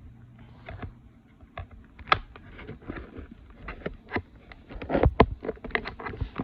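Action-figure packaging being pried open by hand: irregular crackles, clicks and rustles, growing louder and busier about five seconds in.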